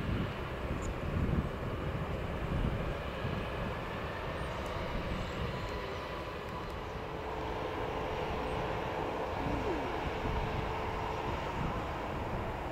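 Turboprop airliner engines running, mixed with wind rumbling on the microphone. First a Bombardier Q400 taxiing, then, about halfway through, a de Havilland Dash 8-100 at takeoff power on its takeoff roll, with a steady engine whine rising above the rumble.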